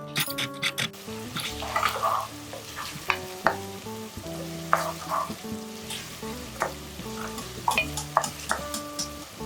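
Food sizzling in a hot pan while being stirred, with irregular clinks and scrapes of a spoon against the pan. Background music plays with it.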